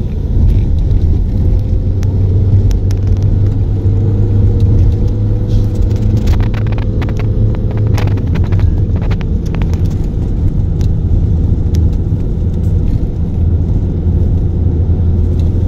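Vehicle driving on a wet road, heard from inside the cabin: a steady low engine and road rumble, with a run of sharp clicks about six to nine seconds in.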